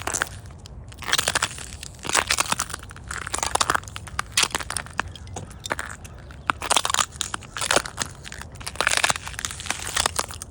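Footsteps crunching and crinkling through thin spring ice, each step a short burst of crackling, at about one step a second.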